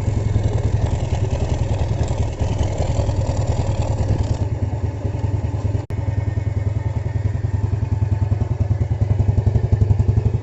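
Motorcycle engine idling steadily with an even low pulse, freshly tuned up. There is a momentary gap in the sound about six seconds in.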